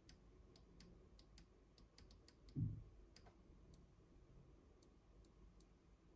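Faint, irregular clicking of small push-button switches on a homemade Nixie clock being pressed to set the time, with a soft low thump about two and a half seconds in.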